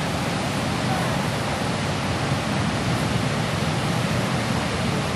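Steady rush of a fast-flowing river carrying broken ice during the spring ice breakup.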